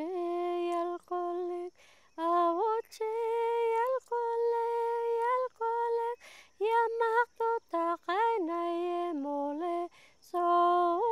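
A lone female voice sings a slow melody unaccompanied, in long held notes separated by short breaks.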